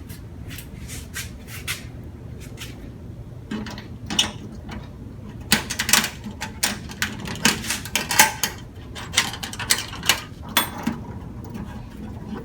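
An old Craftsman Rally Box aluminium toolbox being handled and opened, with a quick run of metal clicks, knocks and clatter as its latches, lid and tray move and the loose contents inside rattle. The clatter picks up about three and a half seconds in and thins out near the end.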